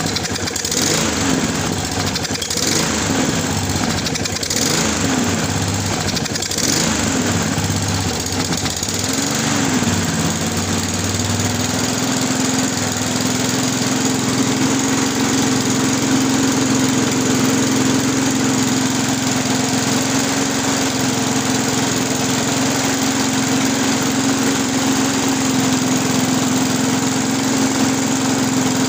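Briggs & Stratton 163 cc lawn mower engine running from a cold start. For about the first ten seconds it runs rough, its speed rising and falling, with the choke still closed. It then settles into a steady, even run, a sign the cleaned carburettor is now working.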